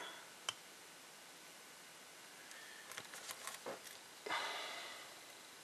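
Quiet bench work: a few faint clicks and ticks of a hobby knife and small kit parts on the work surface, then a soft hiss about four seconds in that fades away.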